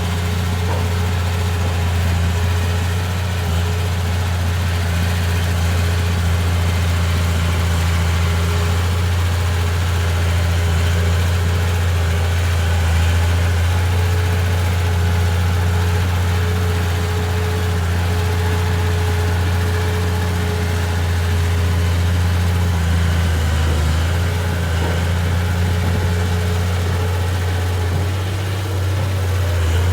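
Komatsu D31P bulldozer's diesel engine running steadily at an even speed, with a strong low hum.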